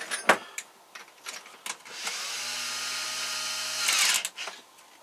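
Cordless drill spinning up and running steadily for about two seconds, speeding up and getting louder just before the trigger is released and it winds down. A sharp knock and a few clicks of handling come first.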